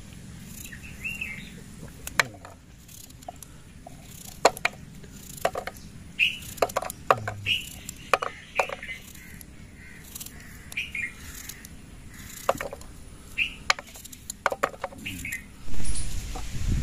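Knife cutting crisp apple pieces by hand, with sharp clicks of the blade and pieces dropping onto a plate, while birds chirp now and then. Near the end a gust of wind rumbles on the microphone.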